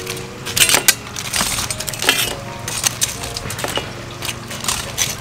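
Crispy fried chicken drumsticks set down one after another on a stainless steel plate: a string of light clinks and crunchy knocks on the metal, roughly one every half second to second.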